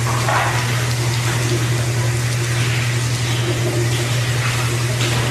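Steady running water, like a tap or shower, over a constant low hum.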